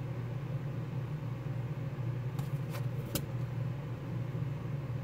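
Steady low background hum, with three faint clicks a little past the middle as the card is handled.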